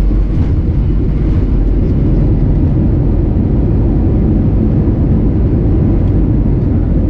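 Steady, loud cabin rumble of an Airbus A320neo with CFM LEAP-1A engines rolling along the ground after landing: engine and wheel noise heard from inside the cabin.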